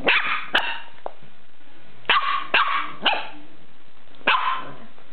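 A puppy barking in short, sharp yaps: a pair at the start, three in quick succession about two seconds in, and one more just after four seconds.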